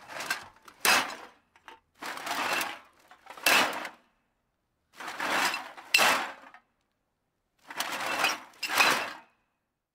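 An edited-in sound effect on the title cards, repeated four times about every two and a half seconds: each time a short rushing noise, then a sharper, louder hit.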